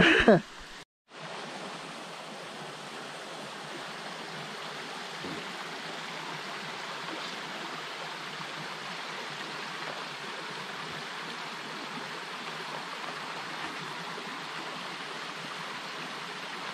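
Steady rush of falling water from a waterfall, an even noise that sets in after a brief silence about a second in.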